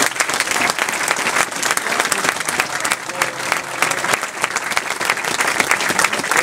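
Large crowd applauding, a dense, steady mass of clapping.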